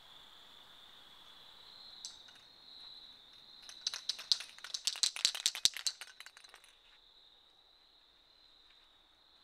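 A rapid, irregular run of sharp rattling clicks lasting about three seconds, starting around the middle, over a faint steady high-pitched whine.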